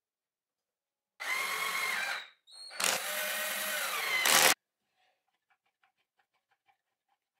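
Cordless drill driving a screw through a steel bracket into a wooden block, in two runs: a short one about a second in, then a longer one that ends loudest and stops suddenly. A row of faint, evenly spaced ticks follows.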